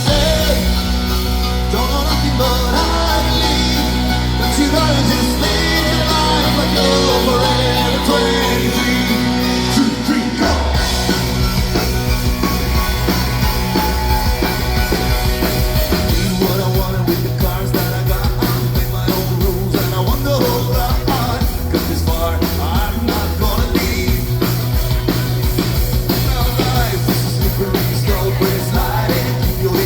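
Live rock band playing loudly, with a sung vocal, guitar, bass and drums; about ten seconds in the band gets busier, with a steady driving beat.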